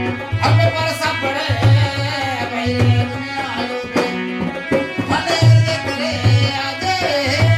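Rajasthani folk devotional song (bhajan): hand drums keep a steady, repeating beat under a sung melody with sustained accompanying tones.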